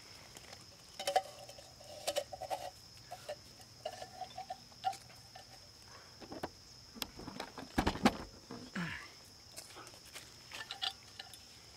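Light metal clinks and short rattles of a camping stove's aluminium cook pot and burner parts being handled and fitted together, with a louder knock about eight seconds in.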